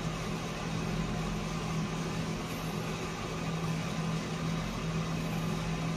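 Electric home coffee roaster running mid-roast: a steady motor-and-fan hum with an even hiss, and no cracking yet as the beans go through the Maillard stage.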